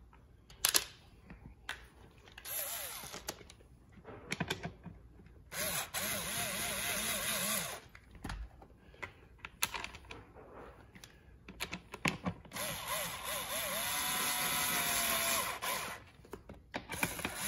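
Small cordless power screwdriver driving the armrest screws into an office chair's seat. Its motor whines in runs of a few seconds, two main spells and a short one near the end, the pitch wavering as the screws bite. Knocks and clicks of the plastic arm being handled come between. The screws are run in only partway and left loose for now.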